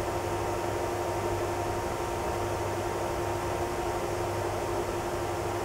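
Steady fan noise: an even whir with a low hum and a couple of constant tones underneath, unchanging throughout.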